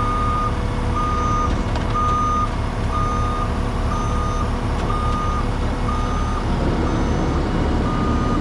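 Excavator's travel alarm beeping steadily, about one half-second beep a second, over its diesel engine running as it tracks up onto a rollback bed. The engine and track noise grow heavier near the end.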